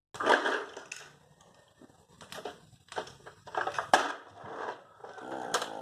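Firewood and kindling being handled in a fireplace: irregular rustling and crunching with a few sharp knocks of wood.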